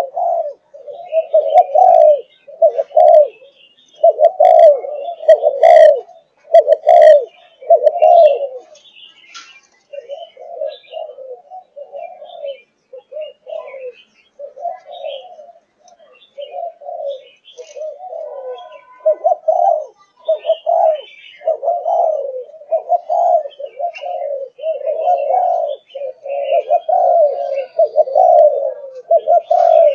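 A young Malaysian-strain spotted dove of the 'thúc gù' line giving its bowing coo over and over, a steady run of short low coos about one to two a second. The coos are softer for several seconds in the middle, and a few sharp clicks come about five seconds in.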